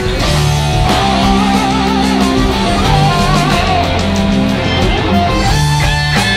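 Live rock band playing with electric guitar to the fore. A lead line with wavering, vibrato notes rides over sustained bass notes through the middle of the passage.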